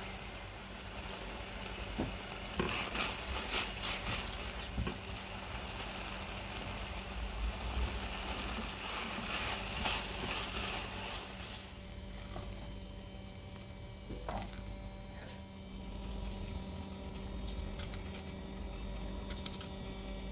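Shredded chicken and onion sizzling in a non-stick frying pan while a spatula stirs and scrapes through it, with scattered scrapes and clicks; the sizzle grows quieter a little past halfway.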